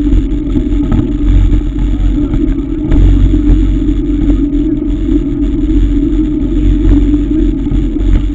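Wind rumble on the microphone and tyre noise from a mountain bike riding up a paved road, steady throughout, with a few faint knocks from bumps.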